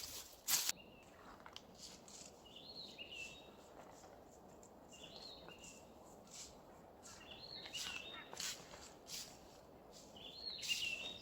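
A songbird singing a short, repeated phrase four times, about every two to three seconds. A few sharp crunches and rustles, the loudest at the very start, fit footsteps on forest litter.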